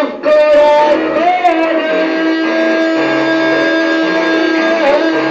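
A bolero sung by a man into a handheld microphone: one long note held for several seconds over guitar accompaniment.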